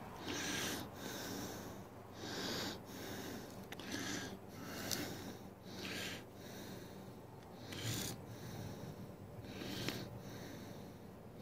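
A person breathing close to the microphone, slow in-and-out breaths about every one and a half to two seconds, with a couple of small sharp clicks, about five and ten seconds in.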